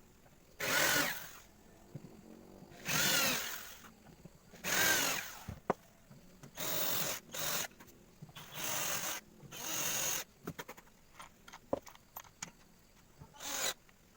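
Power drill run in about seven short trigger bursts of half a second to a second each, spaced a couple of seconds apart, with a few sharp clicks in between near the end.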